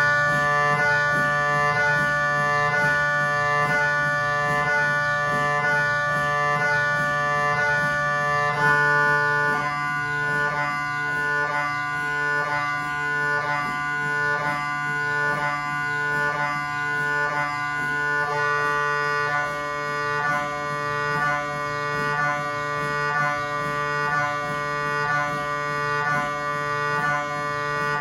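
GE MRI scanner's gradient coils running a three-plane localizer sequence: a loud, pitched, rhythmic buzzing of stacked tones that starts abruptly, shifts to a choppier pattern with a lower tone added about a third of the way in, and stops when the scan finishes.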